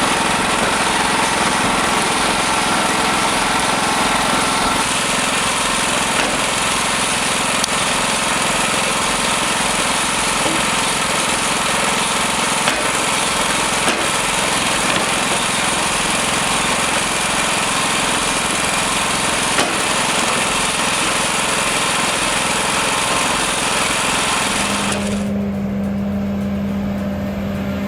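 A small engine-driven wood-cutting machine running steadily and loudly, with a dense, hissing noise. About 25 seconds in, the sound cuts to a lower, steady machine hum.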